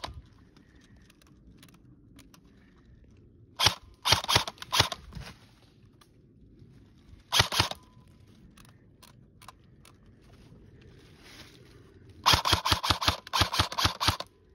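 Airsoft gun firing: a quick volley of shots about four seconds in, another brief shot or two midway, then a longer rapid string of shots near the end.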